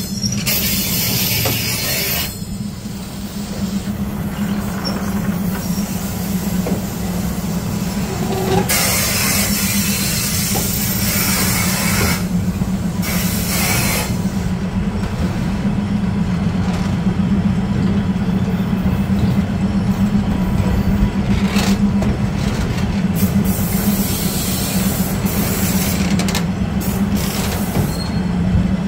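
Steel wheels of a railway passenger carriage rolling slowly over the rails of a wooden trestle bridge, a steady low drone with squeaking from the wheels on the rail. Stretches of hiss come and go over it.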